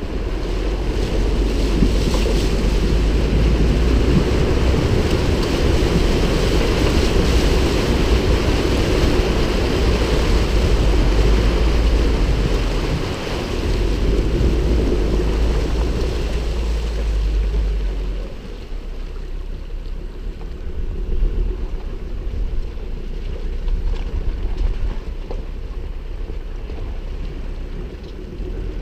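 Ford Ranger T6 wading through a shallow river: water rushing and splashing against the front of the truck over the low rumble of its engine. The splashing grows quieter about two-thirds of the way through as the truck reaches shallower water.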